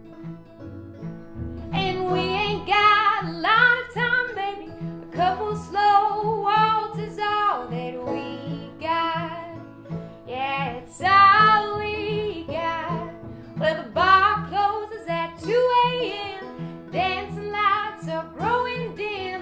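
A song with singing over strummed acoustic guitar and a steady low beat. The singing comes in about a second and a half in.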